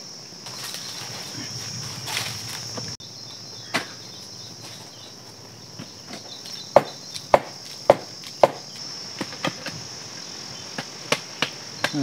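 Crickets or cicadas giving a steady high-pitched drone. Over it come sharp knocks from dry wood as a dead branch is pulled and handled: one about four seconds in, then four in a row about half a second apart, then fainter ones near the end.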